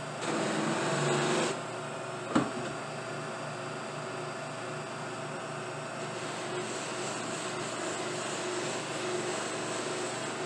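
Lathe spinning a set of buffing wheels: a steady motor whir with a low hum while a dyed briar pipe is buffed against the wheel. It is louder for the first second and a half, with a single sharp click a little over two seconds in.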